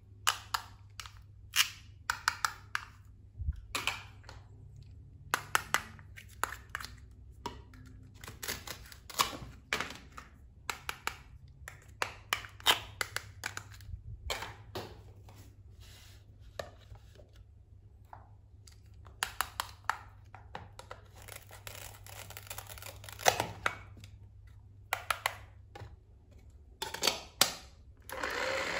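Plastic toy kitchen pieces being handled: a plastic toy knife cutting apart toy fruit and vegetables, with light clicks, taps and short scrapes of plastic on a plastic cutting board and toy blender, coming in irregular clusters with pauses between.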